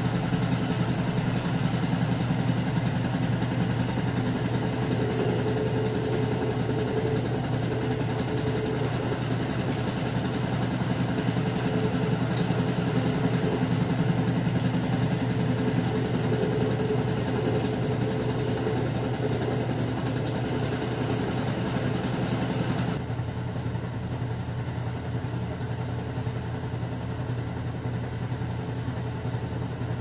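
Vintage GE Spacemaker portable washing machine spinning its tub at the end of the main wash: a steady motor and transmission hum with a hiss over it. About three-quarters of the way through, the hiss drops away and the sound gets a little quieter.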